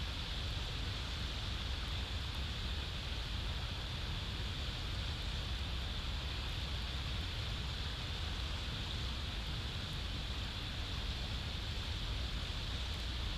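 Steady wind noise on an outdoor nest-camera microphone: a low rumble under an even hiss, with no calls, knocks or other distinct sounds.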